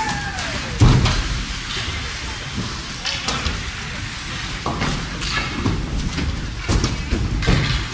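Ice hockey rink during play: skates scraping on the ice and sharp knocks of sticks and puck, with a loud thump about a second in. Indistinct voices from spectators sound under it.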